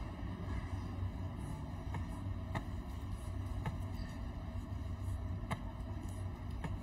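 About five sharp clicks at irregular spacing: chess pieces set down and chess clock buttons pressed in a fast blitz game, over a steady low rumble of hall noise.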